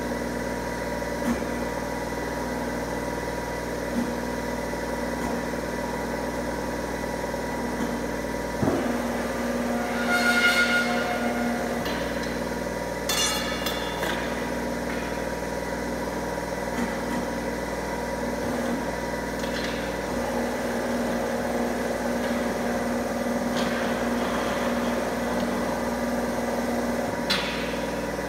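Powered angle-bar bending machine running with a steady hum, with occasional sharp metal knocks as the steel bar is worked. About ten seconds in comes a ringing metal clang, then a clattering rattle a few seconds later.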